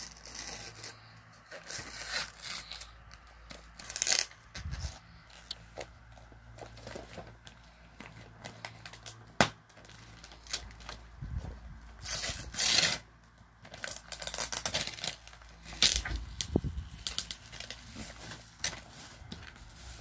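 Gift-wrapping paper being torn and crinkled by hand as a present is unwrapped, in irregular rips and rustles. Louder tears come about four seconds in and again around twelve to thirteen seconds in, and there is one sharp click near the middle.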